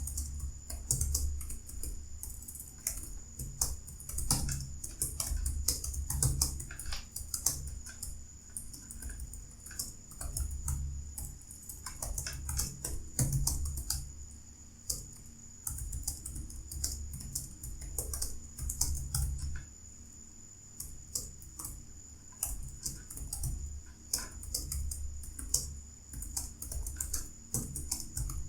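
Fast typing on a computer keyboard at about 49 words per minute: a continuous, irregular run of key clicks with brief pauses.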